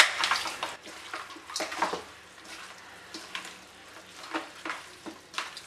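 A bare hand rubbing and squishing raw bone-in mutton pieces with masala in a stainless steel bowl. It makes irregular wet squelches and scrapes, busiest in the first couple of seconds and sparser after that.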